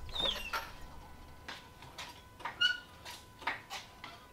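Floor jack being worked under the car: a short falling squeak at the start, then a string of sharp, irregularly spaced clicks.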